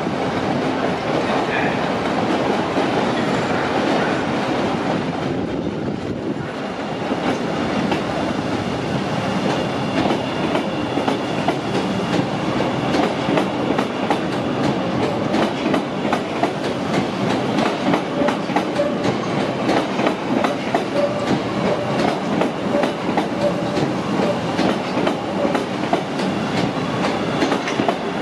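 CTA 7000 Series 'L' rail car running along the track, with a steady rumble and the clickety-clack of wheels over rail joints. The clicking grows sharper and more regular about a third of the way in.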